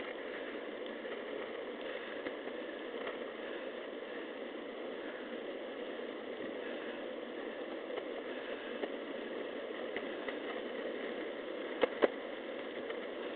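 Steady rushing wind and road noise of a vehicle moving along a paved road. Two sharp knocks come close together near the end.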